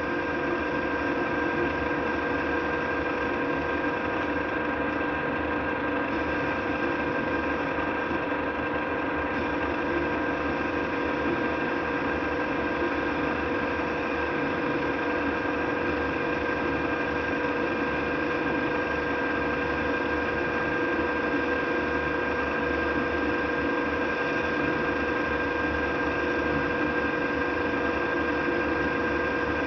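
Metal lathe running with a steady hum and whine.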